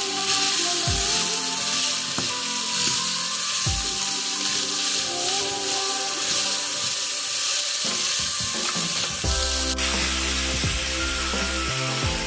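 Shredded cabbage frying in a pan, a steady sizzle, stirred with a wooden spatula, over background music.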